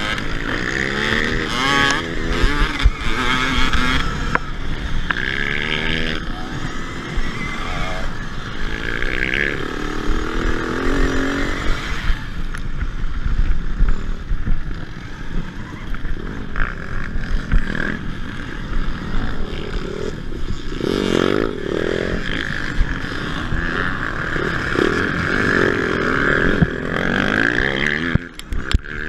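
Combustion dirt bike engines revving up and down close by, their pitch rising and falling. A higher whine comes and goes above them, over steady wind and rough-ground rattle on a handlebar-mounted camera.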